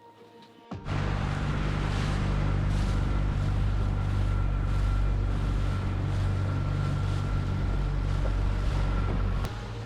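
A small boat's motor running steadily under way, with a low hum, a faint steady whine and the rush of wind and water; it starts suddenly about a second in and cuts off just before the end.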